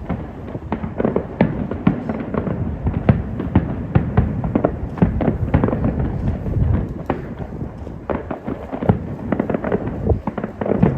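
Aerial fireworks display: shells bursting in a dense, continuous barrage of overlapping bangs and cracks, several a second.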